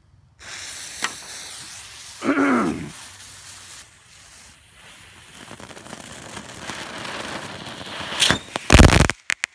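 Hand-held 'Happiness' firework fountain going off: a hiss, then a short whistling chirp that falls in pitch about two seconds in. The spray of sparks hisses louder and louder, and ends in a few sharp pops near the end, the loudest sounds here.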